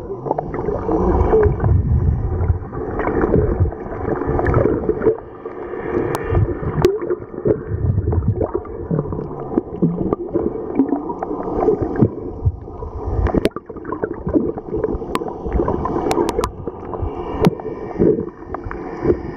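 Muffled underwater sound of water gurgling and sloshing around a submerged camera near the surface, with a low steady hum underneath and a few sharp clicks.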